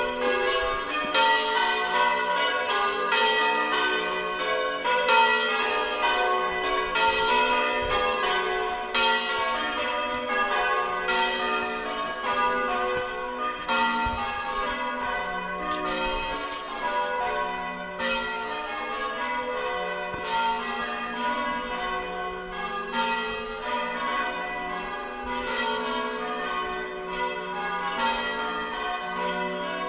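Church tower bells being rung in changes by a band of ringers: a steady, even succession of strikes, each bell still ringing as the next is struck.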